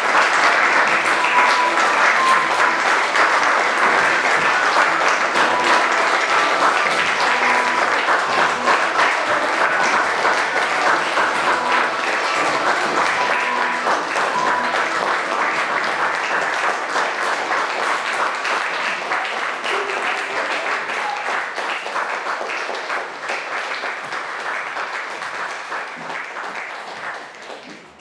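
Theatre audience applauding steadily, a dense wash of clapping that gradually fades out near the end.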